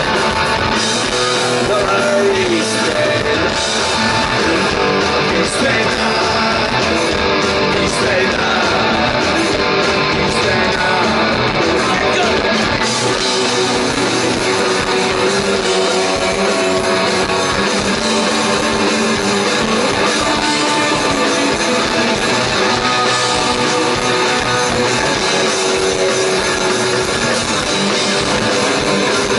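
Punk rock band playing live through a festival PA: loud electric guitars, bass and drums, heard from the crowd.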